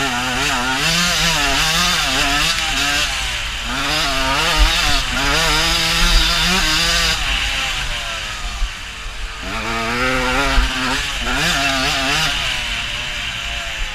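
Dirt bike engine revving hard under way, its pitch climbing and dropping again and again with throttle and gear changes. It eases off about eight seconds in, then revs back up.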